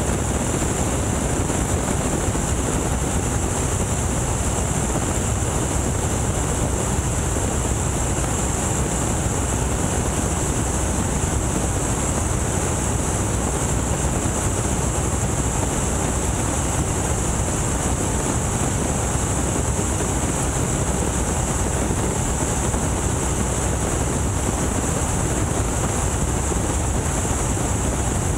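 Boeing Stearman biplane in flight, heard from its open cockpit: the steady drone of its radial engine and propeller mixed with the rush of wind. The sound holds even throughout, with no change in power.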